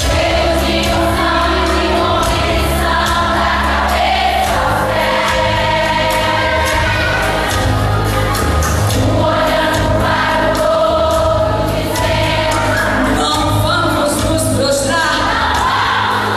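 A woman leads a Portuguese-language gospel hymn through a microphone, with other voices singing along. Band accompaniment underneath keeps a steady beat.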